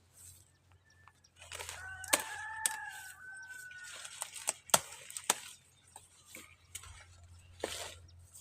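A rooster crowing once, a drawn-out call of about two seconds starting about two seconds in. Around it come rustling and several sharp snaps.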